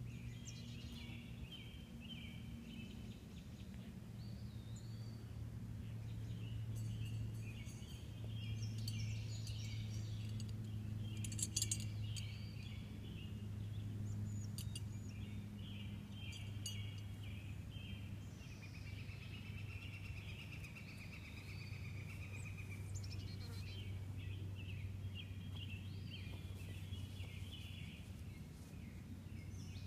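Birds chirping and singing over a steady low hum, with a few sharp clicks about 7 and 12 seconds in.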